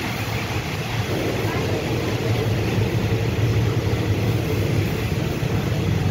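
Passenger train running, heard from a carriage window: a steady low drone and rumble of the train on the track, growing a little louder about a second in.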